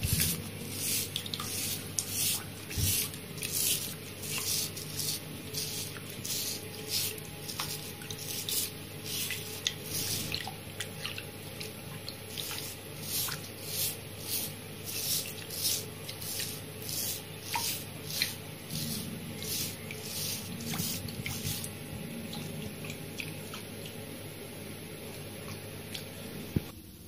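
A toothbrush scrubbing an African pygmy hedgehog's quills in a sink of shallow water: short bristly swishes a little more than once a second, which stop about four-fifths of the way through. Steady water noise from the sink runs underneath.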